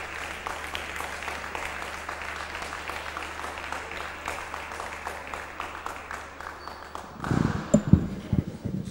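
Audience applauding steadily. About seven seconds in, the clapping gives way to a few low thumps and knocks as a handheld microphone is handled.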